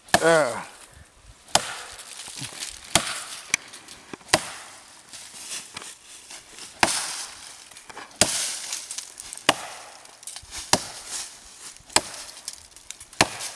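Axe chopping into a small felled log: about a dozen sharp strikes into the wood, mostly one to one and a half seconds apart, with one longer pause partway through.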